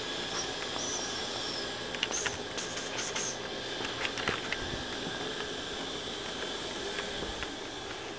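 Steady hiss with scattered clicks and soft taps from a handheld camera being carried through rooms, with a few brief high squeaks in the first few seconds.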